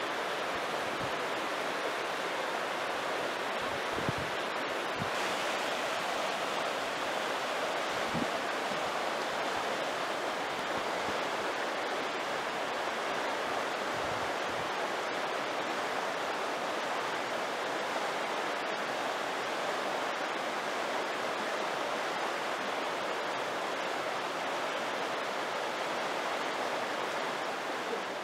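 Shallow, clear mountain stream rushing over stones and riffles: a steady, even rush of water, with a few faint low bumps in the first half.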